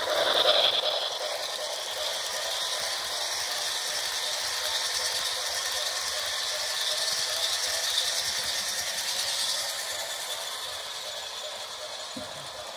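HO scale Broadway Limited New York Central Commodore Vanderbilt Hudson model steam locomotive running along the track, a steady mechanical whir and rattle with a hissing sound, briefly louder about half a second in.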